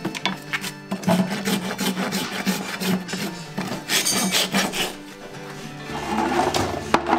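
Farrier's hoof rasp filing a horse's hoof wall in repeated rasping strokes, about two a second.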